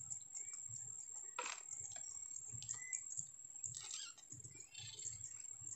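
Quiet waterside ambience in reedy marshland: faint scattered clicks and rustles, a soft bird chirp about three seconds in, and a steady faint high-pitched tone.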